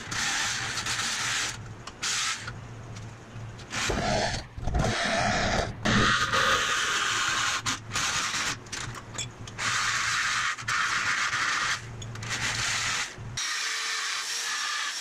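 DeWalt electric jigsaw cutting a slot in a steel box-section frame rail, the blade chattering through the metal with several short breaks. Near the end it gives way to a handheld drill running with a steady whine.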